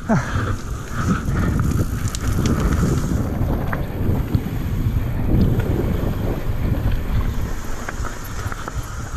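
Wind buffeting the camera microphone and mountain-bike tyres rolling fast over a dirt trail, with scattered rattles and knocks from the bike over bumps.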